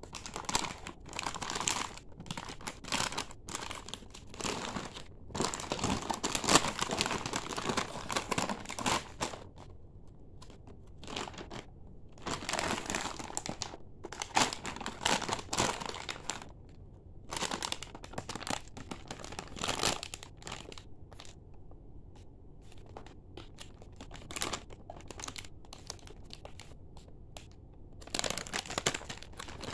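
Plastic milk powder pouches crinkling as they are handled, in irregular bursts, with the longest stretch a few seconds in.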